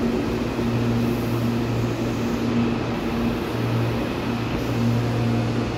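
Stopped CPTM electric train standing at the platform, its on-board equipment giving a steady low electrical hum that swells and eases slightly.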